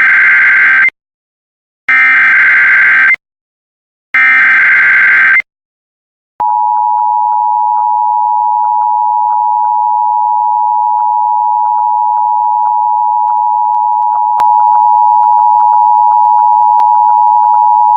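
Emergency Alert System tones: three bursts of warbling SAME digital header data, each about a second long, encoding a tornado warning. These are followed by the EAS attention signal, a steady two-tone 853/960 Hz alarm held for about twelve seconds, which gets slightly louder about fourteen seconds in.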